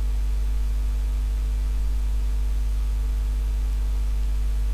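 Steady electrical hum with a low buzz and a constant hiss underneath, unchanging throughout; no other sound.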